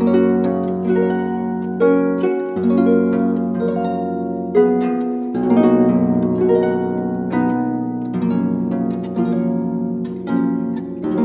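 Harp music: plucked notes struck one after another and left ringing, over low bass notes.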